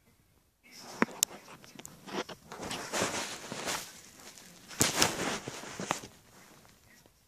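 Handling noise from the recording device being held and moved close to the face: rustling and rubbing on the microphone, with sharp knocks about a second in and again near five seconds.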